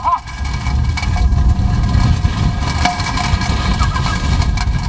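Loud, steady low rumble heard inside a chase vehicle: the vehicle's engine running with road and wind noise. A few short knocks come through as the camera is jostled.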